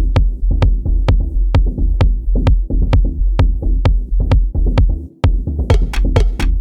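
Electronic beat played on Native Instruments Maschine 2: a deep sustained bass under steady sharp drum-machine hits about four a second. A little after five seconds in the beat drops out for a moment, then comes back with busier, brighter hits.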